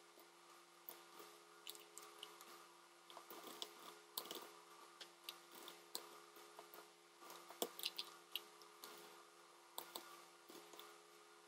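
Faint, irregular clicking of computer keys being typed, in short runs with gaps, over a low steady hum.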